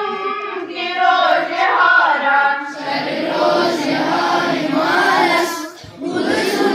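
A large group of schoolchildren singing a prayer together in unison, with a brief break between lines just before the end.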